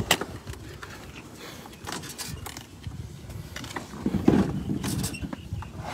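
Asian elephant foraging for cucumbers among the grass beside a metal food wagon: scattered knocks and scrapes, with a louder, low sound about four seconds in.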